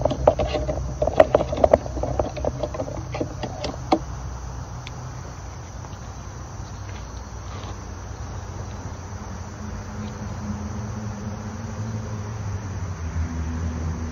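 Close clicking and rustling handling noise for about four seconds, then a steady low outdoor background drone.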